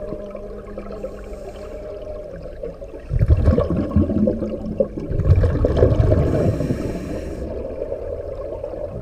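Underwater recording of scuba regulator exhaust bubbles gurgling in two loud bursts, about three seconds in and again from about five to seven seconds in, over a steady low hum.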